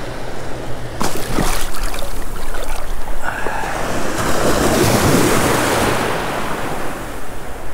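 Small surf breaking and washing up over the sand close by. The wash swells around the middle and eases off near the end, with a couple of sharp knocks about a second in.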